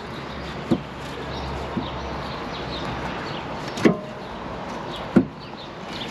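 Four sharp knocks at irregular intervals, the loudest two about four and five seconds in, as a new rear shock absorber on a Land Rover Discovery 2 is worked onto its top mount. Birds chirp in the background.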